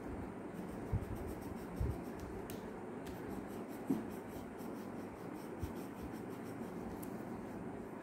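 Coloured pencil scratching across paper in steady colouring strokes, with a few soft low knocks about one, two and four seconds in.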